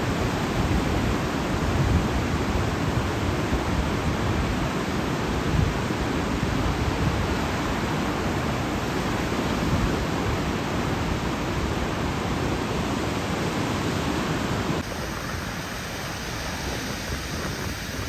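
Caspian Sea surf washing on the shore: a steady rush of noise with a fluctuating low rumble. About fifteen seconds in, the sound changes abruptly and gets a little quieter.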